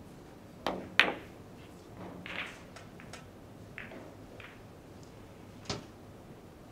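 A billiards shot on a carom table: the cue tip strikes the cue ball, then the balls meet with a sharp clack about a second in, the loudest sound. Softer knocks of balls rebounding off the cushions follow, and there is another sharp ball-on-ball click near the end.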